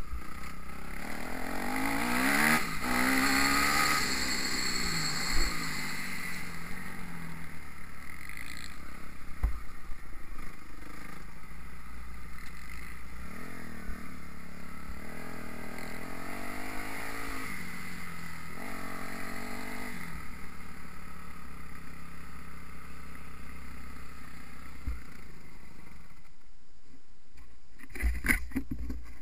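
Kawasaki KX250F four-stroke single-cylinder motocross engine heard from the rider's helmet, revving up and down in surges through gear changes and throttle, with a few knocks from the bike hitting bumps and ruts over a rushing noise. Near the end the engine drops away and a few sharp knocks follow.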